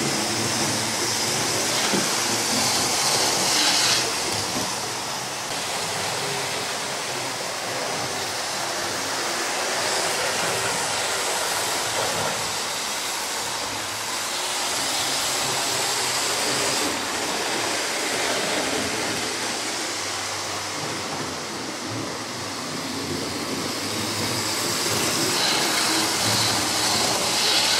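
Model trains running on a layout: a steady whir and rumble of small locomotive motors and wheels on the track, louder about 3 seconds in and again near the end. The locomotives are non-digital, with no sound decoders, so this is only their mechanical running noise.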